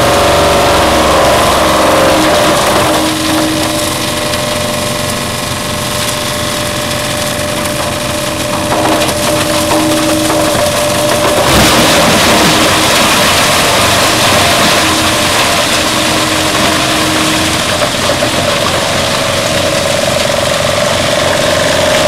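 Large industrial wood chipper and its log infeed conveyor running: a steady, loud machine drone with a humming tone. About halfway through it turns suddenly louder and harsher.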